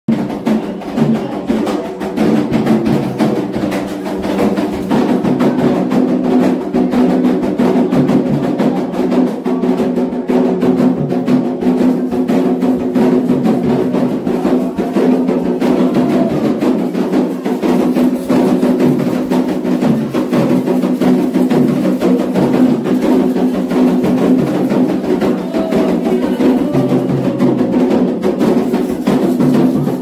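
Candomblé ritual music: atabaque hand drums beating a fast, steady dance rhythm, with a group of voices singing over them throughout.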